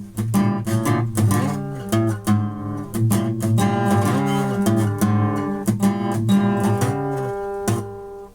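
Acoustic guitar strummed in chords, a rhythmic run of strokes that stops just before the end.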